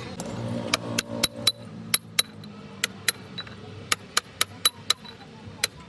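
Hammer tapping on metal during gearbox repair work: a run of sharp, ringing metallic strikes, irregularly spaced at two to three a second.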